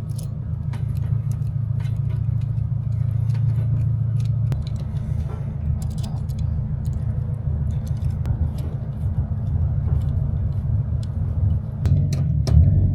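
Steady low machine rumble, with scattered light clicks and taps throughout and a few louder knocks near the end.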